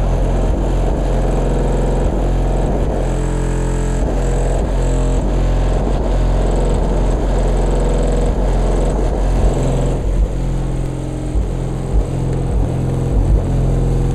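Competition car audio system playing bass-heavy music very loud, with deep bass notes held for seconds at a time.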